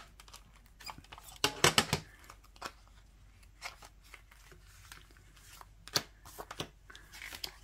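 A plastic CD jewel case being handled while its paper booklet and inserts are pulled out. A quick run of clicks and rattles about one and a half seconds in is the loudest part. After it come scattered small clicks and paper rustling, with one sharp click near six seconds.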